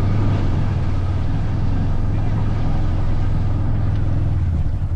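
Off-road vehicle engine running with a steady low drone. Near the end it eases off and begins to pulse, as the throttle is let off.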